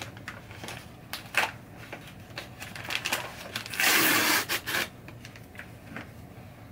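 Paper packaging being handled and opened, with scattered rustles and crinkles and a louder tearing rip about four seconds in that lasts about a second.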